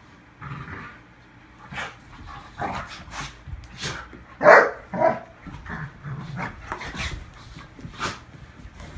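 Two dogs roughhousing, with a string of short, sharp sneezes and growly play noises; the loudest outburst comes about four and a half seconds in. The sneezing is the dogs' play signal that the rough play is friendly and not a real fight.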